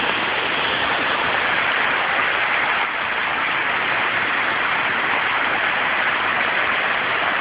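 Heavy downpour: a steady, dense hiss of torrential rain pouring down and splashing on surfaces.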